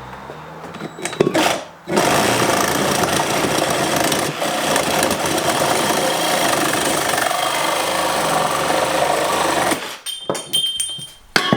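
Reciprocating saw (Sawzall) cutting through copper tubing, running steadily for about eight seconds and stopping near the end, followed by a few light clinks.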